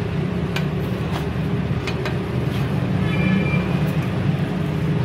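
Egg and buns sizzling on a flat iron griddle over a steady low rumble, with several sharp metal taps of a spatula on the griddle as the fried egg is cut into pieces.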